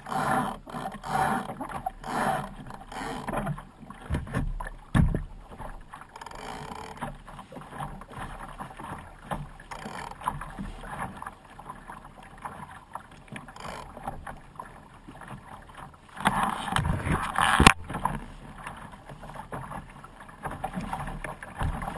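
Water slapping and splashing against a Laser dinghy's hull as it sails through a chop, close to a deck-mounted microphone, with a run of repeated slaps at first and a loud rush of spray about three quarters of the way through, ending in a sharp knock.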